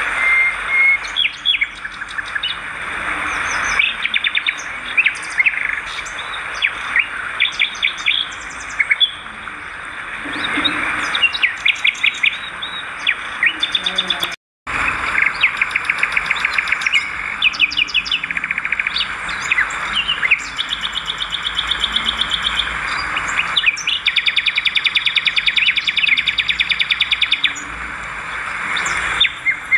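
Swiftlets chirping, with repeated runs of rapid, sharp chirps over a steady hiss. The sound cuts out completely for a moment about halfway through.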